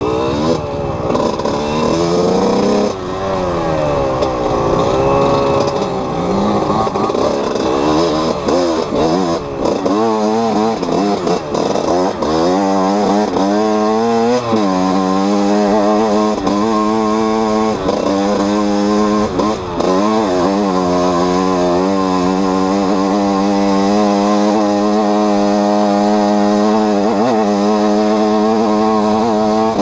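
Enduro motorcycle engine, heard from on the bike while riding a forest trail. Its pitch rises and falls quickly with the throttle through the first half, then holds steady at cruising speed with a few brief dips.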